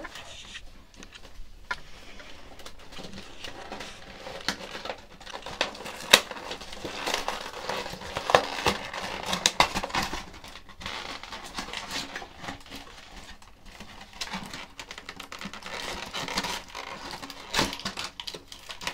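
A cardboard toy box being pried open and plastic-wrapped pieces pulled out: plastic crinkling and cardboard rustling, with irregular clicks and taps and one sharp click about six seconds in.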